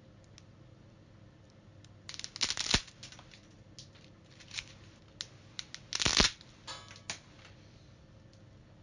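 Handling noises: short noisy rustles or scrapes and scattered clicks over a low steady hum, with two louder bursts about two seconds and six seconds in.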